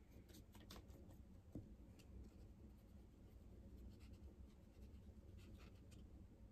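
Faint scratchy strokes of a small watercolour brush dabbing on a mixing palette and stroking across paper, in a few short clusters.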